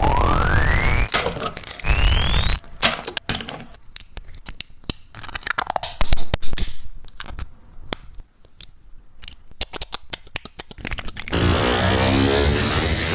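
3D printer stepper motors driving the print head. Two rising whines near the start as the motors speed up, then a run of sharp clicks and ticks, and a steady buzzing hum for about the last two seconds.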